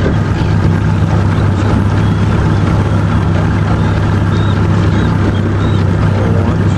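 Small boat's outboard motor running steadily, a constant low hum under a broad hiss of water and wind.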